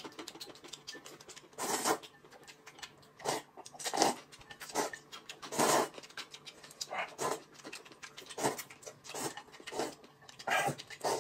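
A person slurping noodles in short, irregular bursts, a dozen or so, with quieter chewing between them. Near the end, broth is slurped from a glass bowl.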